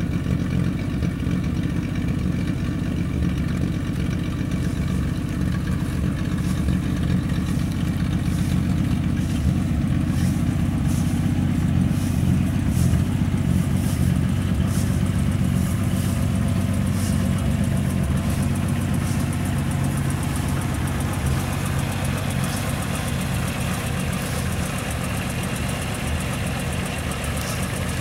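1965 Ford Falcon's six-cylinder engine idling steadily.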